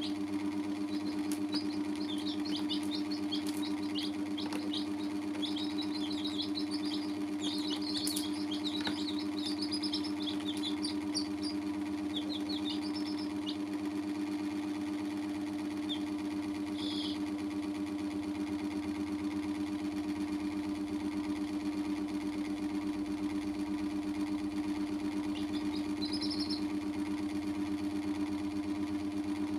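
Baby chicks peeping: quick runs of short, high peeps during the first dozen seconds, then a few scattered peeps later. Under them runs a loud, steady machine hum.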